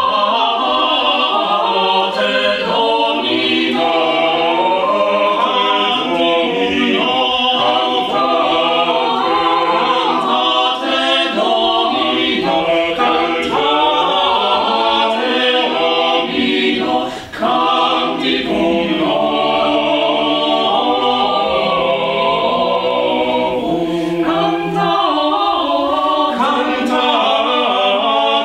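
Mixed vocal ensemble of eight women's and men's voices singing a cappella in close harmony, with a brief break between phrases a little past halfway.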